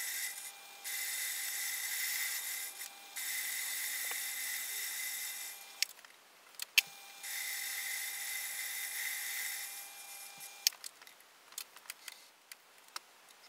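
Small metal lathe turning an aluminium rod, a steady high hiss with a whine, broken by two short dropouts. It stops about six seconds in with a couple of clicks, runs again for about three seconds, then winds down and is followed by light clicks and taps of handling.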